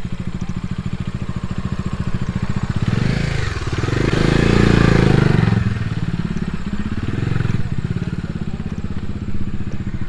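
Motorcycle engine running at low speed with a steady firing beat, growing louder for a couple of seconds near the middle, then settling back.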